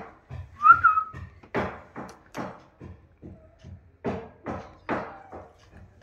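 Rose-ringed parakeet calling: a short whistle about a second in, then a string of short, sharp calls at a quick, uneven pace.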